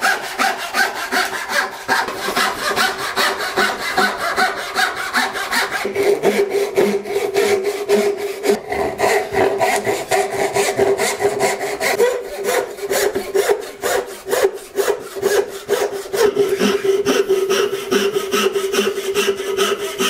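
Small crosscut backsaw sawing through a white oak blank in quick, even back-and-forth strokes, cutting out the waste around a plane tote. A steady ringing note runs under the strokes from about six seconds in.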